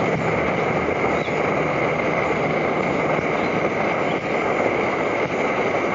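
Primus MFS multi-fuel stove's pressurised burner running steadily on kerosene, a constant rushing flame noise. It is in the kerosene transition stage, with the generator not yet fully hot.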